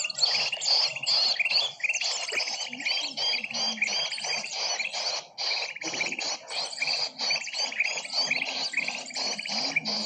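Bird-luring recording of many small birds chirping rapidly over one another in a dense, unbroken chatter, a mixed-species lure call used to draw small birds in.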